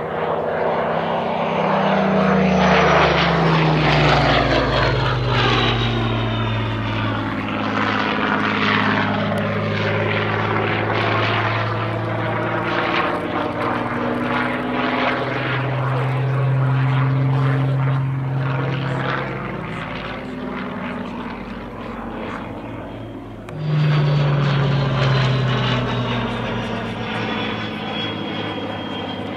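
Supermarine Spitfire LF Mk.Vb's Rolls-Royce Merlin V12 engine and propeller flying past in a display, the engine note falling in pitch as the aircraft passes. A second pass sets in suddenly and louder about three-quarters through, its pitch again dropping.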